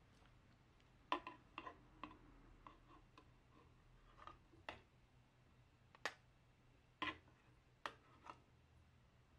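Light clinks and taps of a ladle and a metal spoon against aluminium mess tins as stew is ladled onto rice: about nine sharp knocks at irregular intervals.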